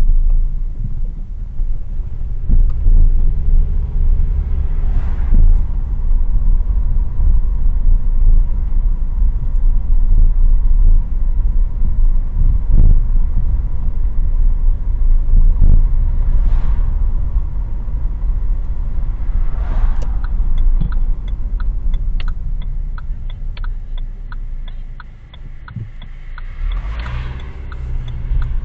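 Low, steady road and engine rumble heard inside a moving car's cabin, with a few brief swells now and then. In the last third a turn signal ticks steadily as the car slows for a turn.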